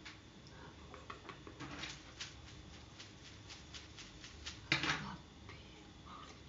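An expanding plastic sphere toy (Hoberman-style) being worked in the hands: a rapid run of light plastic clicks as its hinged struts slide, then one louder burst of noise about five seconds in.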